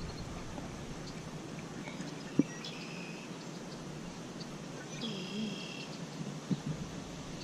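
Steady outdoor background noise with a bird calling twice, short high calls about two and a half and five seconds in. A single sharp click comes just before the first call.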